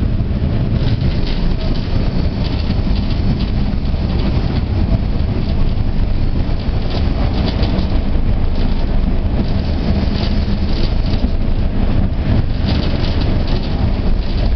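Tram running along its rails, heard from inside the car: a steady low rumble of wheels and motors, with rattling that comes and goes.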